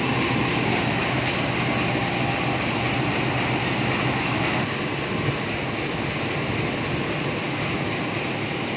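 CC 201 diesel-electric locomotive (GE U20C type) idling steadily with the train at a standstill, a low, even engine hum.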